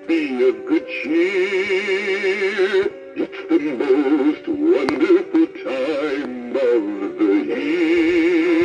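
Animatronic singing Santa toy playing a song through its built-in speaker: a synthetic singing voice holding notes with a wide, even vibrato, in phrases with short breaks. It is running off a 6-volt adapter though it takes 9 volts.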